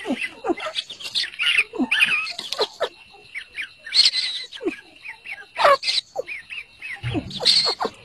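A brood of partridge chicks cheeping: many short, high, falling chirps overlapping in a busy chatter, with a few lower downward-sliding calls among them. A brief low bump sounds near the end.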